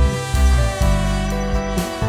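Background music with a steady low beat under sustained melodic tones.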